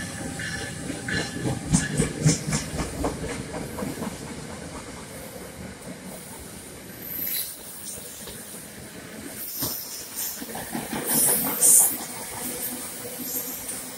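An NJ Transit ALP-46A electric locomotive and its single-level passenger coaches passing close by, wheels clattering over the rails, heaviest in the first few seconds. Loud bursts of hiss come about seven seconds in and again, loudest, near the end.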